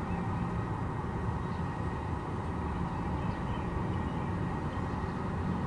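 Steady low outdoor rumble with no siren tone or voice message.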